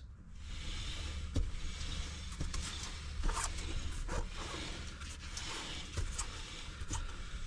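Front wheel of a 2004 Ford F-250 Super Duty spun by hand with the locking hub engaged, turning the front axle and driveline: a faint, steady rubbing whir with scattered light clicks and no grinding or clunking, so no fault is heard.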